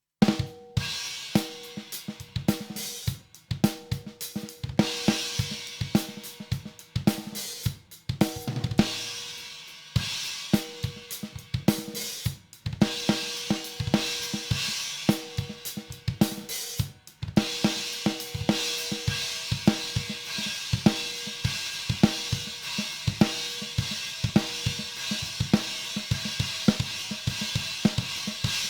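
Drum kit playing steady grooves with a Stagg 18-inch EX Brilliant China cymbal ringing over kick and snare hits. The playing stops briefly a few times.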